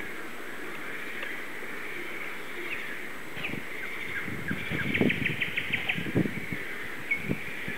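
Wild songbirds chirping and calling, with a quick trill of about eight notes around five seconds in. From about halfway, low gusts and bumps of wind on the microphone.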